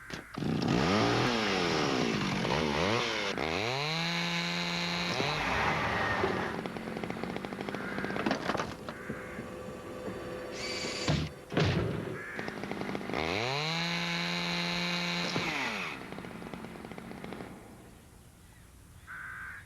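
Chainsaw motor revving up in pitch and then running steadily, twice over, with a couple of sharp knocks between the two runs.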